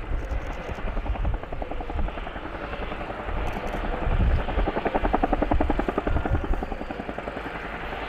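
Bell UH-1 helicopter in flight, its two-bladed main rotor giving a rapid, even blade thump of about ten beats a second over a low rumble, loudest around the middle.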